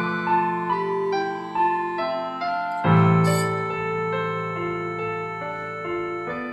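Piano music: a slow melody of single notes over held low chords, with a new bass chord struck about three seconds in.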